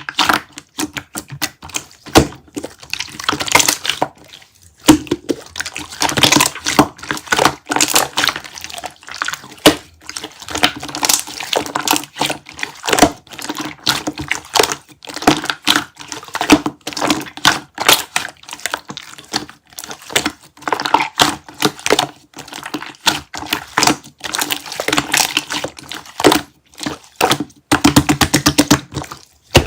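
Slime being squished, pressed and poked by hand: a dense, irregular stream of wet clicking pops and crackles, with a quick even run of clicks near the end.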